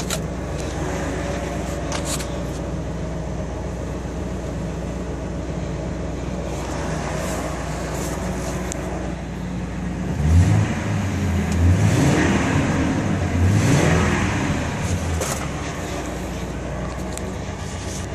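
Ford F-350's 5.4-litre V8 idling after a cold start. About ten seconds in, a louder sound rises and falls in pitch for several seconds, then fades back to the steady idle.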